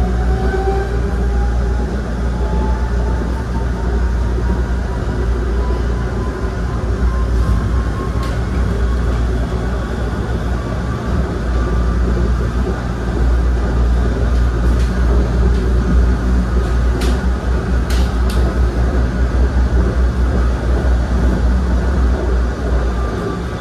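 SEPTA ABB N5 light-rail car running along the track with a steady heavy rumble. A thin motor whine climbs in pitch over the first few seconds as the car gathers speed. A few sharp clicks come through around the middle and again a little later, three close together.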